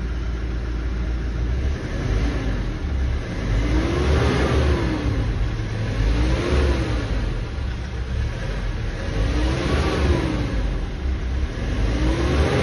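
Hyundai Porter II's CRDi turbo-intercooled diesel engine revved from idle about four times with the accelerator pedal, each rev rising in pitch and falling back to idle, heard from inside the cab.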